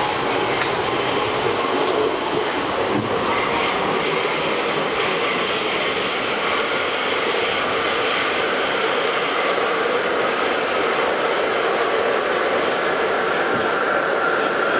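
Westinghouse-Amrail R68 subway car running at speed through the tunnel, heard from inside the car: a steady loud rumble of wheels on rail. About four seconds in, high thin metal squealing joins it and keeps going, with a lower squeal tone added near the end.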